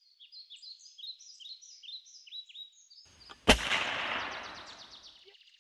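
Birds chirping in a quick series of short falling notes. About three and a half seconds in comes a single loud gunshot, and its echo fades over about a second and a half while the chirping goes on.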